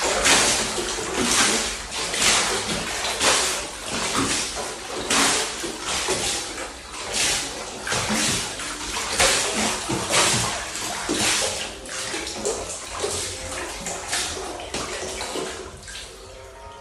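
Residential building swaying in an earthquake, with creaking and swishing that surge about once a second and die down near the end.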